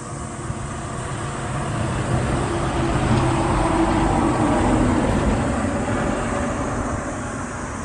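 A vehicle passing by: engine and road noise growing louder to a peak about halfway through, then fading away.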